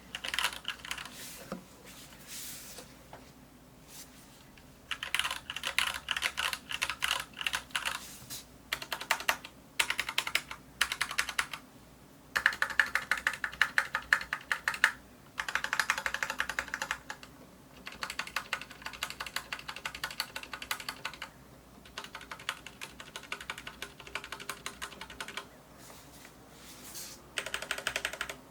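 Anne Pro 2 mechanical keyboard with Cherry MX Brown switches being typed on quickly, in bursts of rapid key clicks separated by short pauses.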